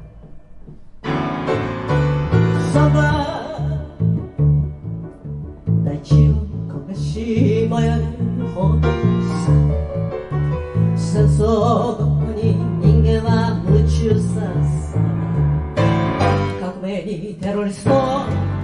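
A woman singing with an upright double bass, the bass playing a steady, evenly paced line of plucked low notes beneath her voice. The music starts about a second in.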